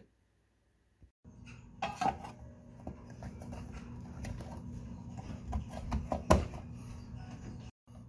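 Clicks and light knocks of a video doorbell's cover being handled and fitted into place, with one louder click late on, over a steady low hum.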